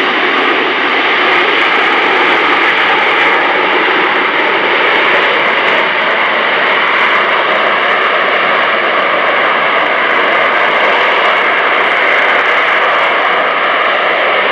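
AV-8B Harrier II's Rolls-Royce Pegasus turbofan engine running loud and steady: an even jet rush, strongest in the upper-middle range, with no sudden changes.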